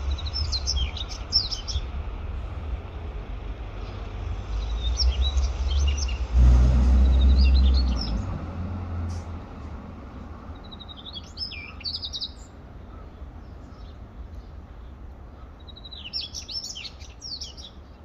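Male Daurian redstart singing about five short phrases of quick, high chirps and trills, several seconds apart. Under the song runs a steady low rumble, loudest from about six to eight seconds in.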